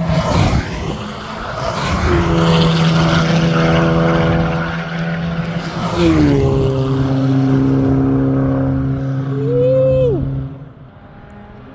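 A race car passing close at full throttle on the straight. Its engine note then holds steady as the car pulls away, drops once about six seconds in as it changes up a gear, and cuts off sharply near the end as the driver backs off.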